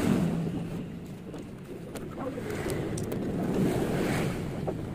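Low rumbling background noise that swells and fades, with a couple of faint metal clicks as clutch springs and parts are handled and fitted into a motorcycle clutch.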